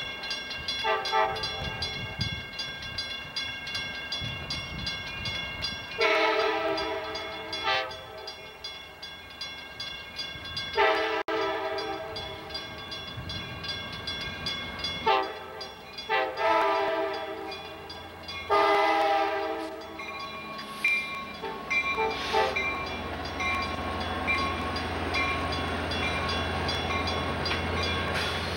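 Amtrak passenger train's air horn sounding a series of blasts for a grade crossing, the longest lasting about two seconds, over the crossing bell ringing. From about two-thirds of the way in the horn stops and the train's low rumble builds as it reaches the crossing.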